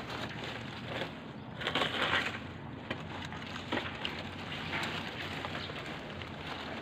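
Rustling and crunching of debris (plastic sheeting, cloth and rotted wood) as remains are handled inside an opened tomb, with a louder rustle about two seconds in and scattered small clicks.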